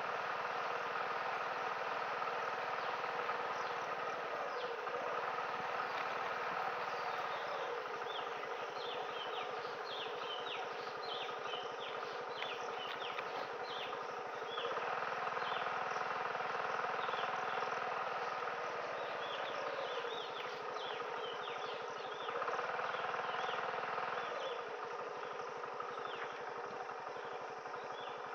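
TVS XL100 moped's small single-cylinder four-stroke engine running steadily while riding. It gets louder about halfway through and again a few seconds later as the throttle opens. Many short, high chirps from forest wildlife sound over it through the middle.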